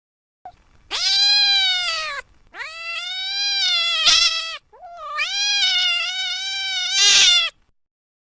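A domestic cat giving three long, drawn-out meows, each sliding down in pitch at its end.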